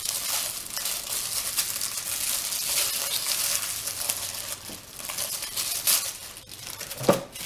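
Crinkling and rustling of a plastic K'Nex blind bag being torn open and handled. It is busiest for the first few seconds and dies away near the end.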